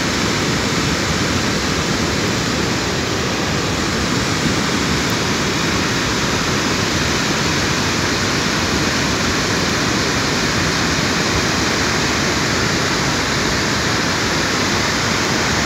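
Steady rushing of a mountain stream in flash flood, a muddy torrent in spate after heavy rain.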